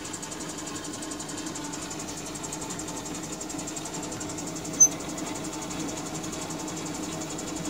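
Wave soldering machine running, a steady hum from its solder pump and conveyor as a circuit board passes over the molten solder wave. A brief high-pitched blip sounds about five seconds in.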